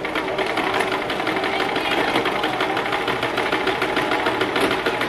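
Electric household sewing machine running at a steady speed, its needle stitching rapidly and evenly through a thick layer of cotton cord.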